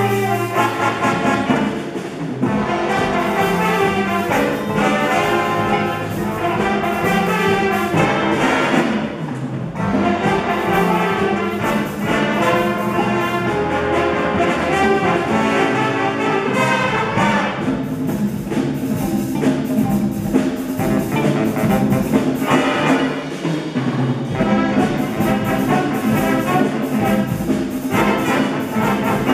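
Jazz big band playing: saxophones, trumpets and trombones with tuba, electric guitars and drum kit, loud and continuous.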